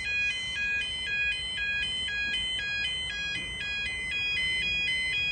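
Level crossing's YA30 yodel alarms sounding a two-tone warble, alternating between two pitches about twice a second, as the road barriers rise after the trains have passed. The alarm cuts off suddenly at the very end.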